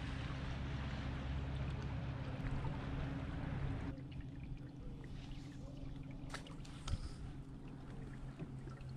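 A canoe under way: a steady low motor hum with water rushing along the hull. About four seconds in the rushing drops away, leaving the hum and a few light clicks.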